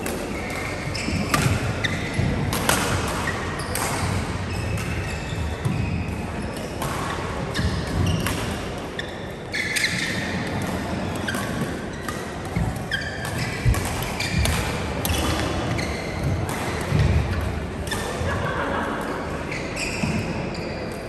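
Badminton play in a large hall: a run of sharp, irregular racket strikes on shuttlecocks and footwork on the court, with short squeaks scattered among them.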